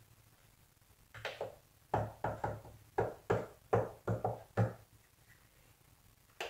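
About a dozen short, sharp drum hits in quick, uneven succession, played by tapping the drum pads of an Akai MPK249 controller that triggers a drum-machine kit. One more hit comes near the end.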